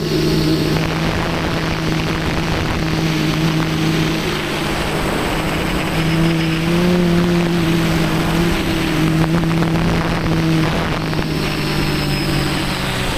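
RC airplane's motor and propeller humming steadily, heard from the onboard camera, with wind rushing over the microphone. The pitch lifts a little about seven seconds in.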